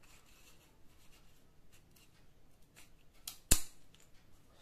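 Aluminium telescopic trekking pole being handled: faint clicks and rubbing of its sections, then one sharp knock about three and a half seconds in, with a smaller one just before it.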